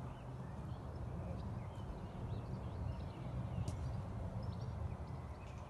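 A horse walking on a soft arena surface, its hoofbeats muffled, under a steady low rumble, with small birds chirping in the background.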